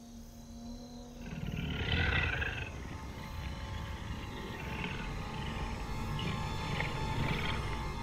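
Eerie suspense soundtrack: a low rumble swells in about a second in, with a growl-like roar effect loudest around two seconds in, then a steady dark drone with softer scattered growls.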